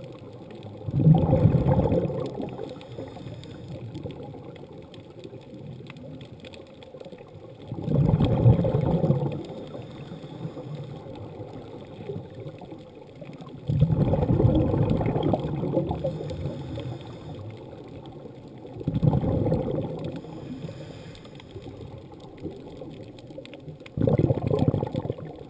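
Scuba regulator exhaust bubbles gurgling, heard underwater: five bursts of exhaled bubbles, roughly one every five seconds, with quieter stretches between breaths.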